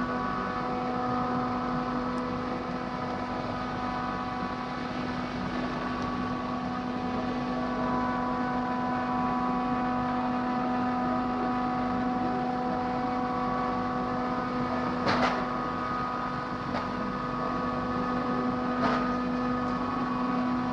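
Okuma CNC milling machine running: a steady pitched hum with a noisy bed underneath. Two short sharp noises come about three-quarters of the way through and again near the end.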